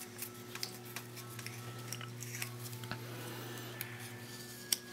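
Faint crinkles and small clicks of small folded paper slips being unfolded by hand, with one sharper click near the end, over a steady low hum.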